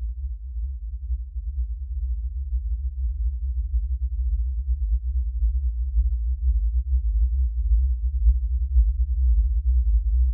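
A deep, low rumble with no higher sound above it, growing slightly louder.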